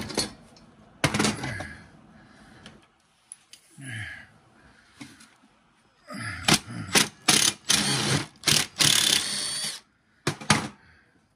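A cordless power driver runs in a string of short, rattling bursts in the second half, while screws are driven out of a cordless circular saw. Before that come a few sharp clicks and knocks of tools and metal parts being handled on a workbench.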